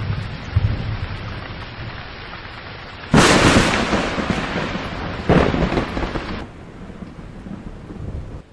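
Heavy rain falling steadily with low thunder rumbles, then two loud thunderclaps: a sharp crack about three seconds in that fades out, and a second about two seconds later. Near the end the sound drops to a softer hiss.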